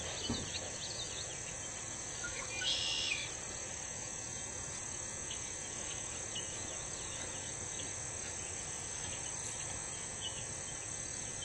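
Steady, high-pitched chorus of insects, crickets by their sound, with a short chirp about three seconds in.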